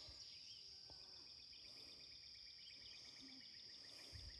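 Near silence with faint insects: a steady high-pitched drone and a fast, evenly pulsed chirping.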